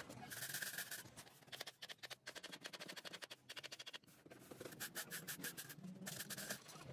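Quick scraping strokes, several a second, with two short hissing stretches, one near the start and one near the end.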